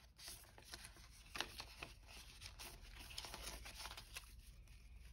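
Faint crinkling and rustling of Canadian polymer banknotes being handled and counted by hand, with a few sharper crackles, the clearest about a second and a half in.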